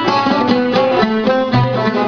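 Oud being plucked, playing a quick melody of single notes.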